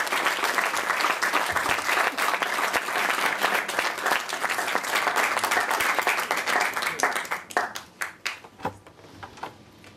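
Audience applauding: dense clapping that thins to a few scattered claps and dies away about eight seconds in.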